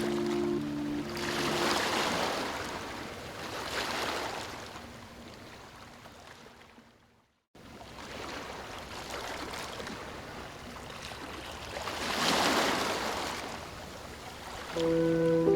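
Ocean surf washing in and out in slow swells. The sound fades to silence about seven seconds in, then comes back. Soft held music notes sound over it at the start and again near the end.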